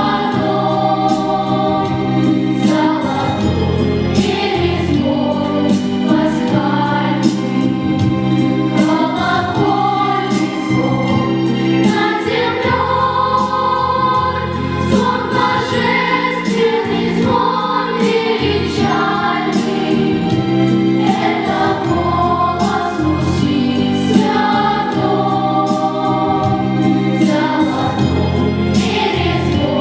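Russian Orthodox church bells rung continuously, many bells struck in quick succession so their ringing tones overlap, together with choral singing.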